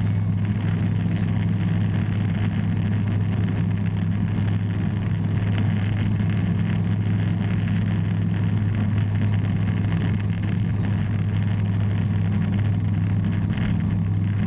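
Bristell light aircraft's piston engine and propeller, a steady low drone in flight with an even rushing noise over it and no change in pitch.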